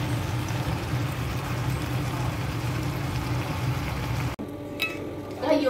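Steady low mechanical hum that cuts off abruptly about four seconds in, leaving quieter room sound with a few sharp clicks.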